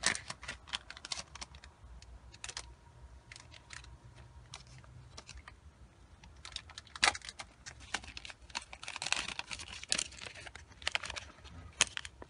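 Packaging of a Safety Patch fire-extinguishing sticker being handled and opened by hand: irregular clicks and crinkles, densest around nine to ten seconds in.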